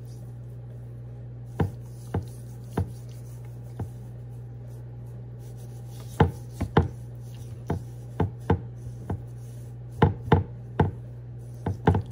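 Hands patting and rubbing seasoning into raw salmon fillets on a glass cutting board. Irregular sharp taps and slaps come a few at a time early on, then in quicker clusters from about six seconds in, over a steady low hum.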